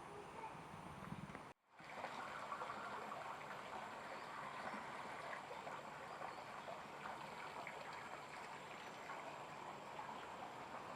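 Steady flowing, trickling water from a stream, briefly cut off about one and a half seconds in.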